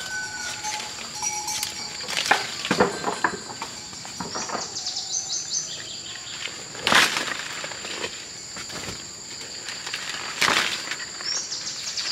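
Outdoor ambience: insects keep up a steady high-pitched drone, and a bird gives a short rapid trill twice. A few sharp rustles or knocks are the loudest sounds, about two seconds in, around seven seconds and around ten seconds.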